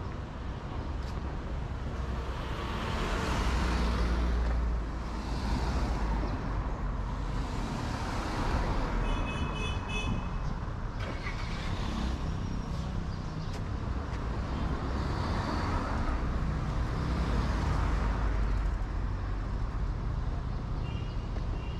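City street traffic: cars passing one after another, the noise swelling and fading as each goes by, with a short high beeping about halfway through.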